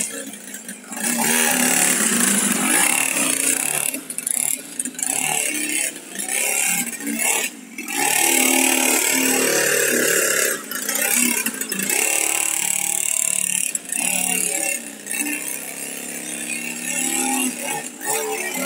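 Mini dirt bike's small engine revving and easing off again and again as it is ridden over dirt, with short dips in sound every few seconds.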